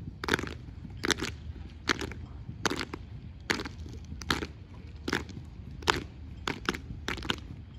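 Unarmed exhibition drill team's percussive routine: sharp stomps, slaps and claps landing together in quick doubled strikes, a cluster about every 0.8 seconds, over a steady low hum.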